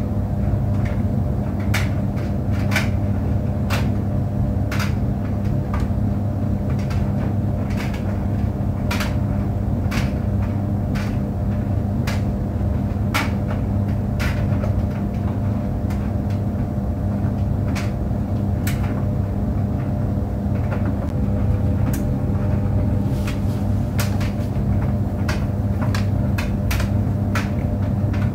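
Tumble clothes dryer running: a steady drum-and-motor hum with a few steady higher tones over it, and irregular light clicks and knocks about once or twice a second as the load tumbles.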